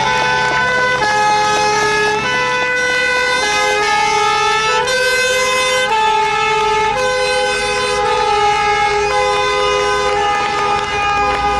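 Vehicle horns and a two-tone siren from a convoy of forestry trucks, sounding without a break. Several held notes overlap, and the siren switches between two pitches about once a second.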